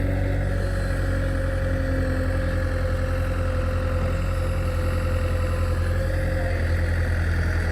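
Heavy diesel engine of a backhoe loader or tractor running steadily, with a deep even throb and a faint steady whine above it.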